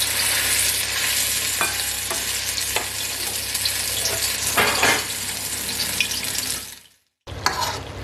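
Chicken sizzling in hot oil in a pan, stirred with a utensil that scrapes and clinks against the pan now and then. The sound cuts out briefly about seven seconds in, then resumes.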